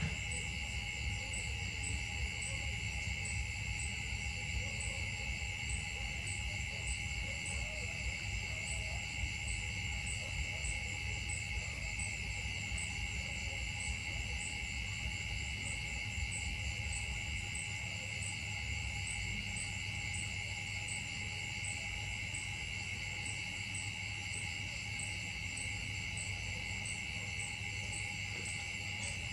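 Steady chorus of insects in the trees: a continuous shrill drone with a faster, evenly pulsing high call over it, and a low rumble underneath.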